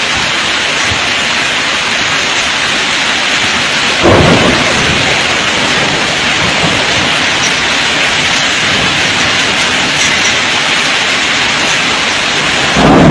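Heavy storm rain pouring steadily, with two short louder low rumbles, one about four seconds in and one near the end.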